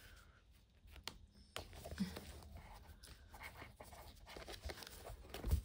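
Faint rustling and scratching of a paper sticker pack and its sheets being handled, with a few light clicks and a soft low thump near the end.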